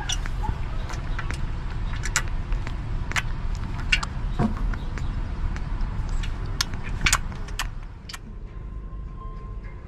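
Baby macaque lapping milk from a metal tray: irregular wet clicks and slurps over a steady low rumble. The clicks stop about eight seconds in.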